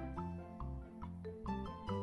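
Upbeat background music with a bouncing bass line and short mallet-like notes, Latin-flavoured.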